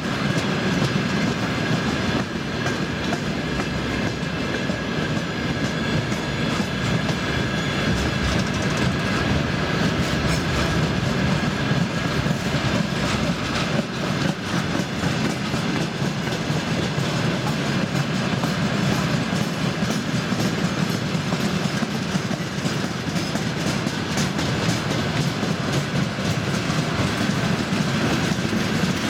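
Long freight train of tank wagons rolling past close by: a steady rumble of wheels on rail, with repeated clicks over the rail joints and a faint steady high-pitched wheel ring.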